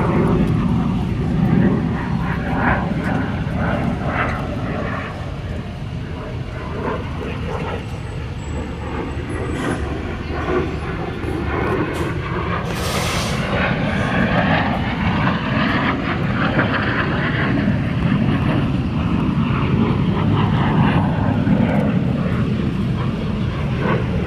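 Jet noise from a Lockheed T-33 Shooting Star's single turbojet engine as it flies aerobatics overhead, a steady rushing sound that swells and fades with a slow sweeping, swishing tone as the jet passes.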